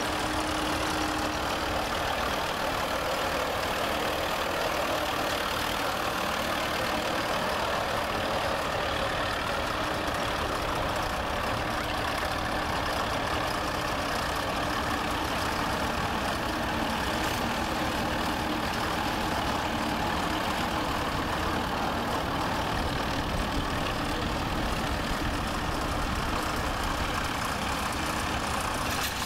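Vintage tractor engine running steadily while pulling a trailed plough through the soil.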